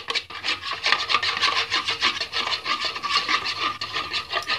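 Steel spoon beating eggs in a ceramic bowl, scraping round the bowl in a fast, even rhythm of about five strokes a second, with a faint ring from the bowl.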